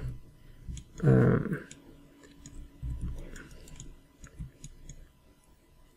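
Faint, scattered clicks of a computer mouse, with a brief murmur from a voice about a second in.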